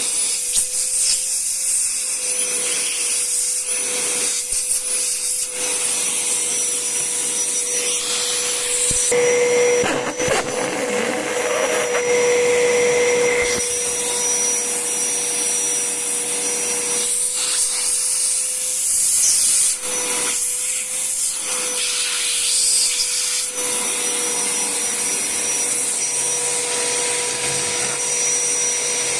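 INGCO 1200 W wet & dry canister vacuum cleaner running loud on suction, a steady motor whine with hiss. Its note and loudness shift twice for a few seconds at a time, about a third of the way in and again past the middle.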